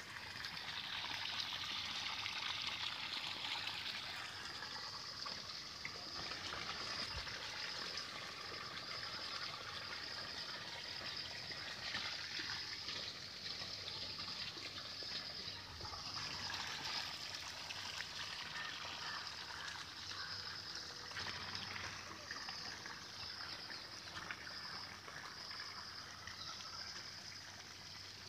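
Steady trickling and rushing of floodwater over flooded ground.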